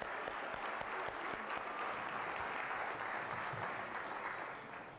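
Audience applauding, a steady clapping from many hands that tapers off near the end.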